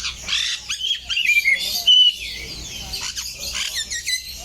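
Many caged birds calling at once, a busy mix of chirps, whistles and squawks, with a loud held whistled note about two seconds in.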